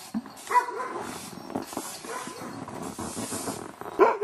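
Sled dogs (huskies) barking in their dog yard; a string of loud, quick barks starts near the end.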